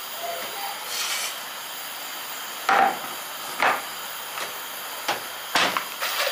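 A glass baking dish being lifted off the rack of an electric oven with an oven mitt and handled: a few short knocks and scrapes of glass and metal.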